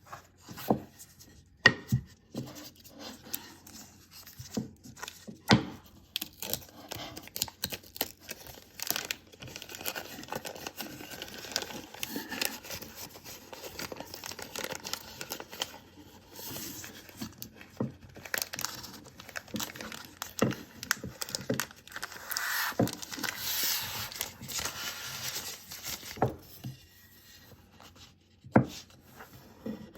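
Packaging being handled while a keyboard wrist rest is unboxed: plastic and paper wrapping rustling and crinkling, with scattered sharp taps and knocks. The rustling is busiest in the middle stretch and thins out near the end.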